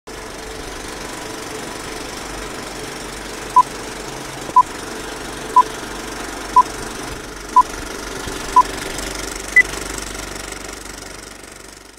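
Six short, identical electronic beeps about a second apart, followed by one higher beep, over a steady noisy rumble that fades out near the end, like a countdown sound effect.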